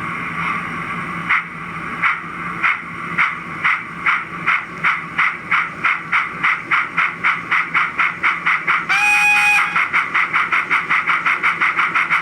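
Sound decoder of a model BR Standard Class 9F steam locomotive: a steady steam hiss, then exhaust chuffs starting slowly about a second in and quickening steadily as the locomotive pulls away, set to four even chuffs per wheel revolution with the articulated exhaust switched off. A short whistle blast sounds about nine seconds in.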